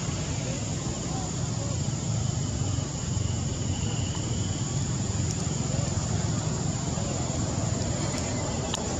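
Steady outdoor background noise: a constant low rumble with an even hiss over it.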